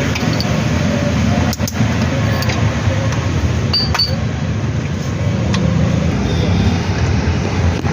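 A few sharp metallic clinks of hand tools and engine parts, one ringing briefly about halfway through, over a steady rumble of traffic noise.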